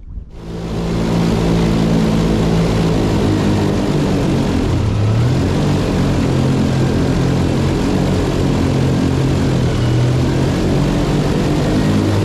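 Airboat's engine and air propeller running at speed, a loud steady drone that starts abruptly and rises slightly in pitch about five seconds in.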